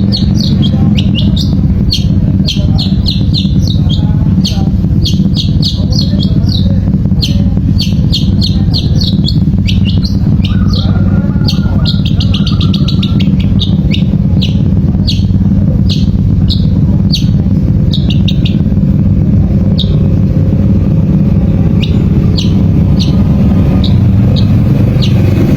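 Long-tailed shrike (cendet) in semi song: quick clusters of short, high chirps, several a second, growing sparser in the second half. A loud, steady low rumble runs underneath.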